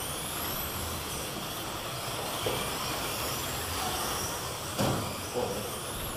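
Slot cars running on a multi-lane routed track: the high whine of their small electric motors rises again and again as they accelerate, over a steady hiss, with a single short knock about five seconds in.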